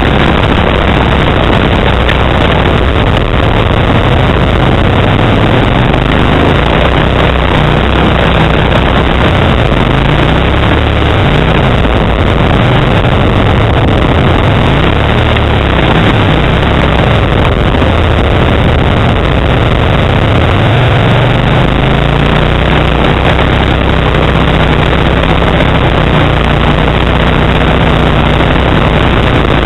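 Kawasaki Brute Force 750 ATV's V-twin engine with a Muzzy aftermarket exhaust, running loud under way and rising and falling with the throttle over rough ground. About three quarters of the way through the engine note climbs and holds steadier.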